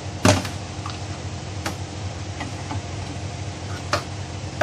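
A few sharp metal clanks and knocks as a steering rack is worked loose and lifted from a steel bench vise. The loudest comes just after the start, another about four seconds in. A steady low hum runs beneath.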